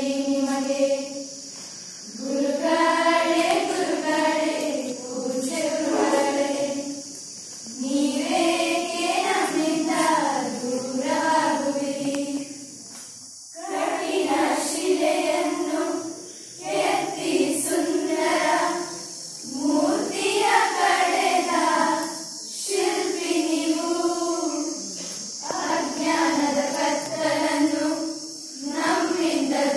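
A choir of schoolgirls singing a farewell song unaccompanied, in sung phrases of a few seconds each with short breaks for breath between them.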